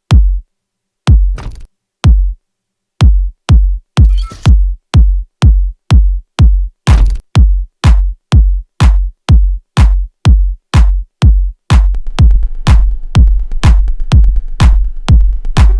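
Eurorack modular drum samples triggered in a Euclidean rhythm: deep kick-drum hits, about a second apart at first, then steady at about two a second, with occasional noisy snare or hi-hat hits. About twelve seconds in, denser percussion and pitched synth tones join.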